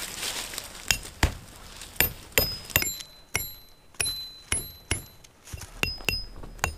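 A hatchet head hammering a metal tent stake into stony ground: about a dozen sharp clinking strikes, roughly two a second, each with a brief high ring.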